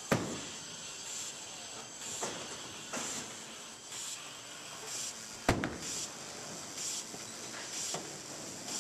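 Bowling alley hiss with soft, regular pulses about once a second. A sharp knock comes at the start, and a loud heavy thud about five and a half seconds in as the bowling ball is released onto the wooden lane.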